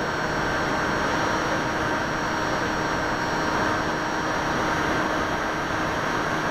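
Brushless electric motor and pusher propeller of a Bixler 2 RC plane running steadily in flight, heard through the plane's onboard camera, a steady whine of several tones over a constant hiss of rushing air. The propeller has been balanced.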